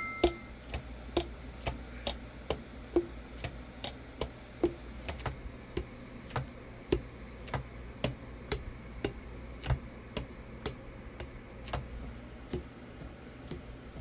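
Buffet Super Dynaction tenor saxophone keys pressed and released by hand, the pads closing onto the tone holes with soft, hollow 'tong' pops about two a second. A clean, even pop like this is a good sound: the pads are seating and sealing well.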